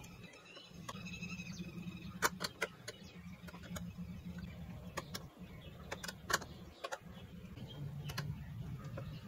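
Small screwdriver tightening the screws that hold an inkjet printhead into its carriage. Scattered light clicks and ticks come from the driver tip and fingers against the metal screws and plastic, over a faint steady low hum.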